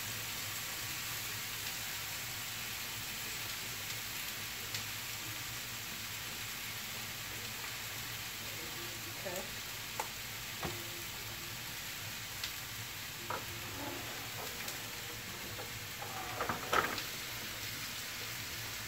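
Boneless, skinless chicken breasts in oil sizzling steadily on a hot electric grill pan. There are a few sharp clicks of metal tongs against the pan from the middle on, and a louder clatter near the end.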